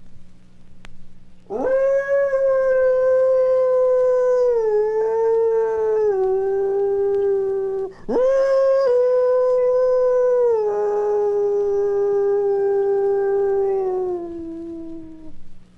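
Werewolf howl sound effect: two long howls, each swooping up at the start, then held and stepping down in pitch, the second about eight seconds in. A faint steady low hum runs underneath.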